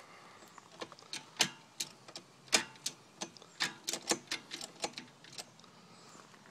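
Irregular sharp metal clicks and clacks, more than a dozen over about five seconds, from a go-kart's homemade shift linkage built from snowblower parts as it is worked back and forth.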